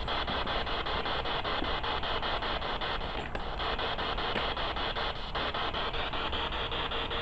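Spirit box sweeping through radio stations: a steady hiss of static broken by rapid, regular ticks as it steps from station to station.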